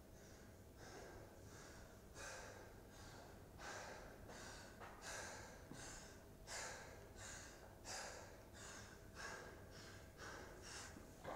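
Faint, rapid heavy breathing from an athlete catching his breath in the middle of a heavy barbell clean workout: quick, even in-and-out breaths, one to two a second, growing slightly louder toward the end.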